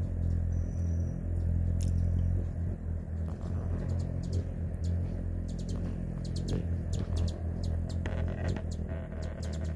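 Hummingbird wings humming while it hovers close at the feeder, a steady low buzz. From about three seconds in, short high chirps come in quick succession.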